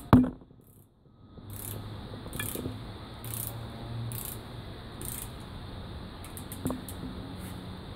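Socket ratchet wrench clicking in short bursts, about one stroke a second, as it turns bolts in a car's engine bay, with a quicker run of clicks near the end. A sharp metal knock comes at the very start, and a low steady hum runs underneath.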